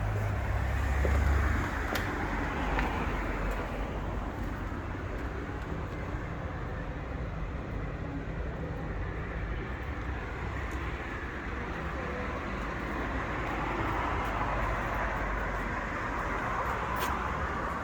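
Street traffic below: a steady rumble of passing cars, with one swelling louder as it passes, about two thirds of the way through.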